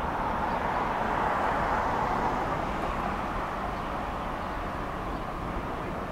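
Freight train's covered hopper cars rolling past on steel rail: a steady rumble and hiss of wheels on track, a little louder in the first couple of seconds.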